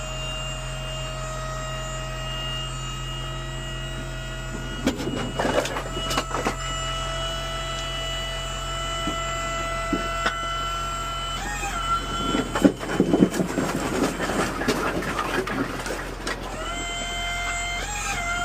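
Dump truck running with its hydraulic hoist pump whining as the bed is raised to tip a load of firewood. The whine steps up in pitch twice with the engine speed, and there are bursts of rattling and knocking around five seconds in and again through the middle, as the load shifts.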